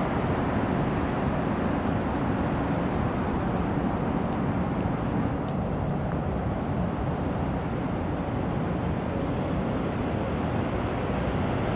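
Steady, even hum of traffic from the elevated expressway overhead, with no distinct events.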